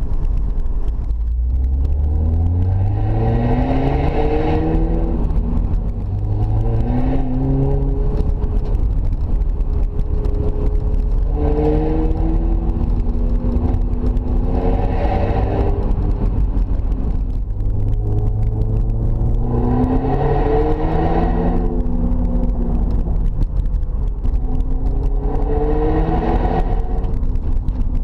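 Car engine heard from inside the cabin, accelerating hard several times: the revs climb over a few seconds and drop back at each gear change.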